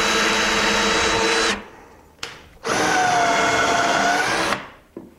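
Cordless drill/driver running in two bursts, driving screws into wood: one run stops about one and a half seconds in, and a second run starts a second later and lasts about two seconds.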